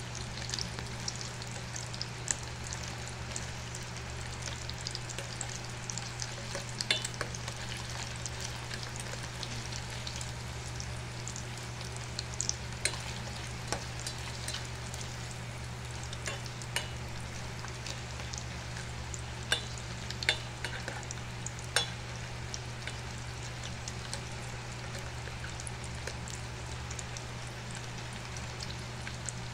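Sausage pieces sizzling in hot oil in a frying pan, a steady crackle with sharp pops now and then. A steady low hum runs underneath.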